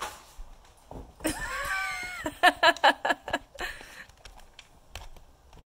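Siberian husky vocalizing: one gliding call, then a quick run of short pulsed yips. There are a few soft knocks as paper rolls are knocked over.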